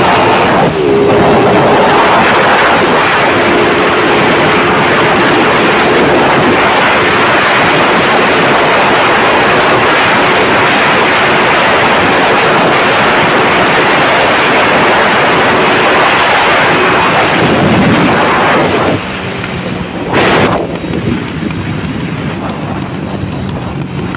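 Honda EX5 Dream four-stroke single-cylinder underbone motorcycle ridden at speed, its engine running at high revs under heavy wind noise on the microphone. About 19 seconds in the wind noise falls away as the bike slows, leaving the engine running more quietly at lower revs, still pulling strongly.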